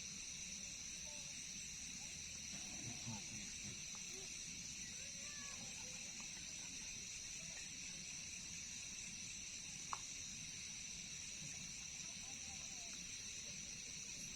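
Night insects, such as crickets, chirring in a steady high chorus, with one sharp click about ten seconds in.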